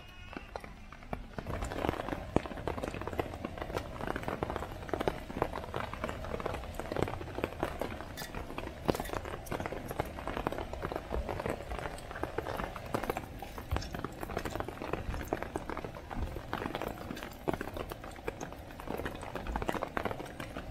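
Whole spices (cumin seeds, cardamom pods, cinnamon sticks) sizzling and crackling in hot oil in a small cast-iron pot, the sizzle picking up about two seconds in and then holding steady with many small pops.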